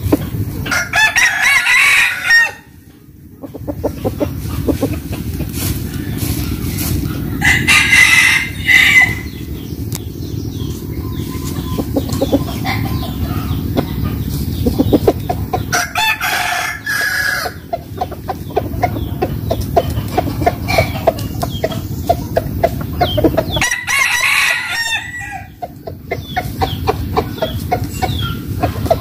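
Roosters crowing, four long crows about seven to eight seconds apart, with clucking in between over a steady low rumble.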